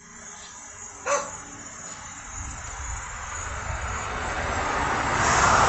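A dog gives one short bark about a second in, then a rushing noise with a low rumble builds steadily and is loudest near the end.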